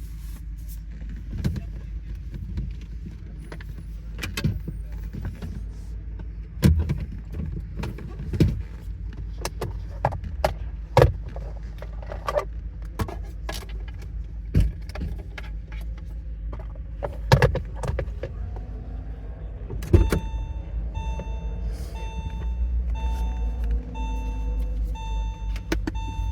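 Inside a Porsche 986 Boxster: a steady low rumble with scattered clicks and knocks from the cabin. About twenty seconds in, a two-tone warning chime starts beeping about once a second.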